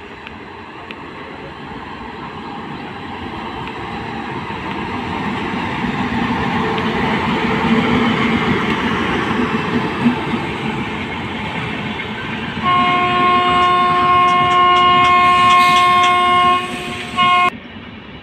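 Indian Railways WAP7 electric locomotive and passenger coaches approaching and passing, the rumble of the wheels on the track growing louder. About thirteen seconds in the locomotive sounds its horn in one long blast, with sharp wheel clicks over the rail joints, then gives a short second blast near the end.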